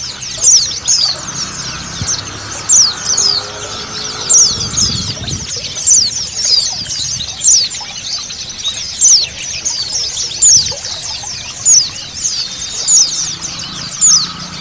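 A flock of white-eyes (pleci) chirping and twittering all together, with louder sharp chirps about once a second, over the faint sound of running water.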